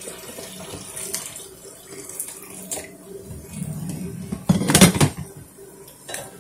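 Zucchini pancake frying in a nonstick pan, a steady sizzle with a few light clicks of utensils and a louder burst of noise about five seconds in.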